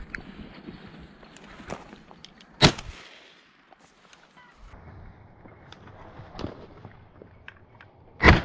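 Two shotgun shots about five and a half seconds apart, fired at a rabbit bolted from the warren by ferrets.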